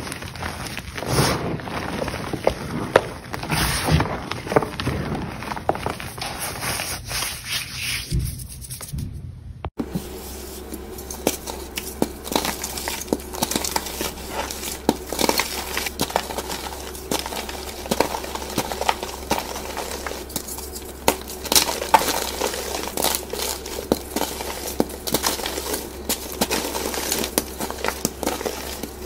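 Blocks of chalk being crushed and crumbled by hand: a dense run of dry crackles and crunches. The sound changes abruptly about ten seconds in, as a second recording of crushing takes over.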